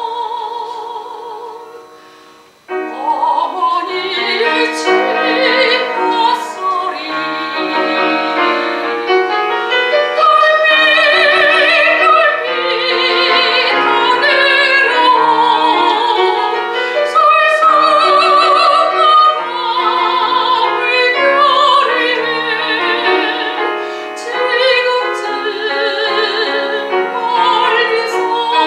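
Soprano singing a Korean art song (gagok) in operatic style with piano accompaniment. A held note with vibrato fades away over the first couple of seconds; after a brief pause, voice and piano come back in and the singing carries on.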